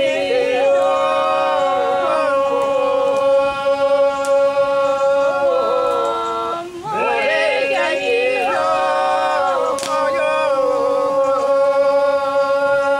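Unaccompanied singing led by an elderly man: two long phrases of held notes with ornamented turns, broken by a short pause about six and a half seconds in.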